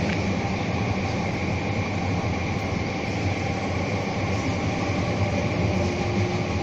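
Steady low rumbling background noise with a faint constant high whine, unchanging in level throughout.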